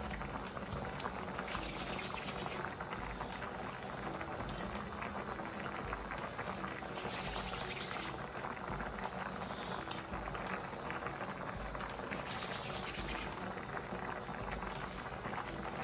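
A pot of stew peas with dumplings bubbling steadily at a simmer, with brief spells of louder hissing three times.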